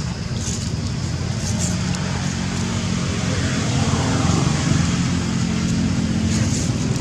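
Steady low engine hum, like a motor vehicle running nearby.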